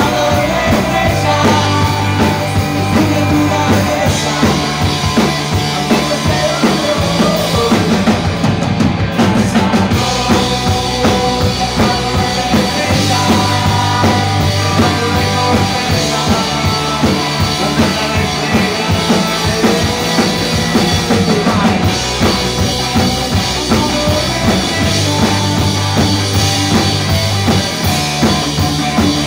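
A live rock band plays loudly through the stage PA: electric guitars over sustained bass notes and a steadily pounding drum kit.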